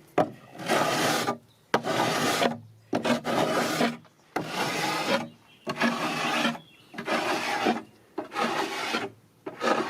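Hand plane shaving the edge of a wooden drawer in repeated strokes, about one a second, each a dry rasping scrape, to take it down where it catches in the cupboard.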